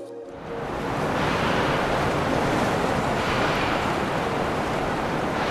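Steady rushing of wind and water on a boat outing, with wind buffeting the microphone; it swells up over the first second and then holds steady.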